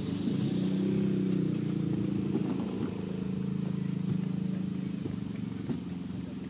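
Diesel truck engine running with a fast, knocking beat as the truck reverses, loudest in the first couple of seconds and then easing off.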